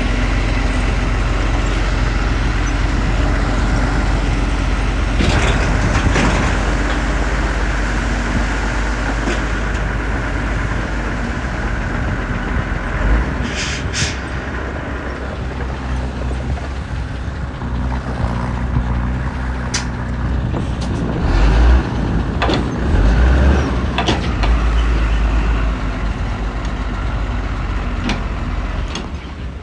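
Heavy diesel earthmoving machinery running steadily, with scattered sharp metallic clanks and a few low thuds about two-thirds of the way through.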